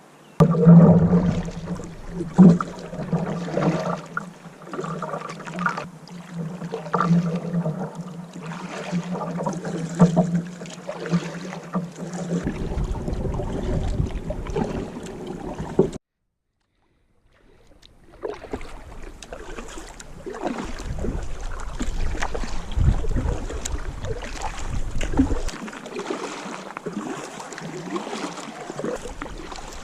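Kayak paddle strokes dipping into calm water, with splashing and dripping from the paddle blades, heard over several edited clips. The sound drops out completely for about a second and a half about 16 seconds in.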